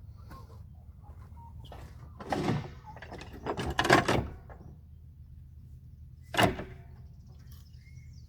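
Three short bursts of knocking and scraping, about two, four and six and a half seconds in, the middle one the loudest, over a steady low hum.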